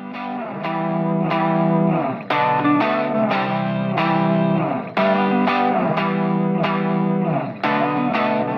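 Intro music: an electric guitar through effects picks a repeating figure of notes, about three a second, with a louder accent every few seconds.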